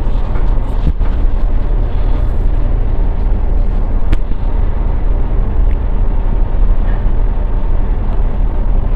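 Cargo ship's diesel engine running steadily as the ship gets under way, a deep even rumble. There is a single sharp click about four seconds in.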